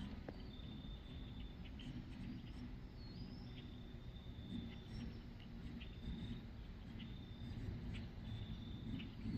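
An insect trilling: a thin, high trill about a second long, repeated every second or two, with a few faint chirps above it and a low rumble of wind underneath.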